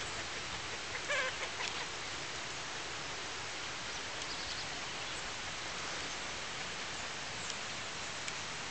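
A steady, even hiss. About a second in, a bird gives a short pulsing call with several pitches, and a few faint high chirps follow around the middle.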